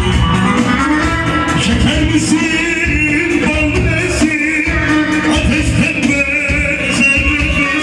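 Live band playing a Turkish folk song (türkü), a passage without transcribed lyrics: a wavering melody line over a steady bass and rhythm.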